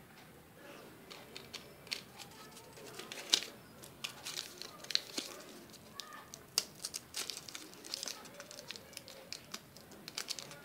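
A microSD card's paper-backed plastic blister pack being peeled open by hand: an irregular run of sharp crinkles and crackles of card and plastic.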